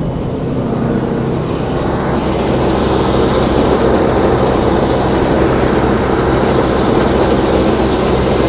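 Combine harvester running steadily under load, growing louder over the first few seconds and then holding level.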